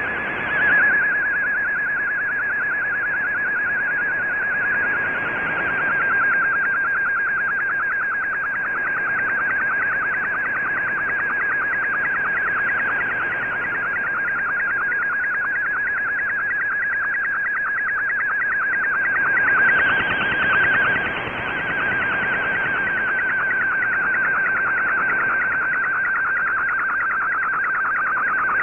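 Shortwave broadcast of an MFSK colour picture coming through an Icom IC-R8600 receiver: a steady whistling data tone, rippling with rapid regular ticks as the image is sent line by line, over radio hiss. The hiss swells briefly about two-thirds of the way through.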